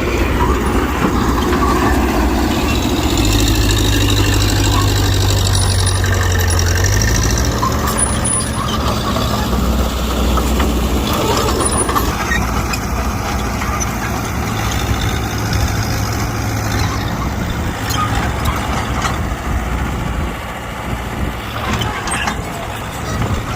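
Heavy diesel earthmoving machine running under load, its engine note stepping in pitch a few times, with a high metallic squeal at times.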